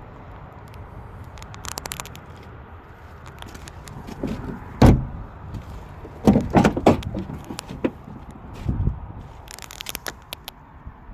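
A few heavy thumps and clattering knocks, the loudest about five seconds in, with a cluster soon after and another near the end, and scattered light clicks in between.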